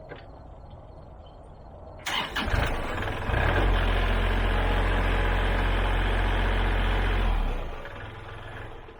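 Kubota L3301HST tractor's diesel engine picking up sharply about two seconds in and running loud and steady for several seconds, then falling away near the end, as the hydraulics raise the loader.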